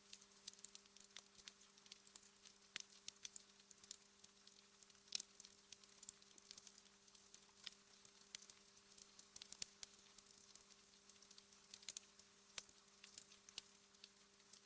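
Wood fire crackling quietly: irregular sharp pops and snaps over a soft hiss, with one louder pop about five seconds in. A faint steady low hum runs underneath.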